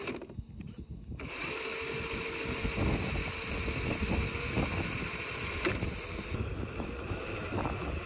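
Electric motor and drivetrain of a Wltoys 104020 RC truck whirring with its wheels spinning in the air, a steady whine from about a second and a half in until past the middle. Wind buffets the microphone throughout.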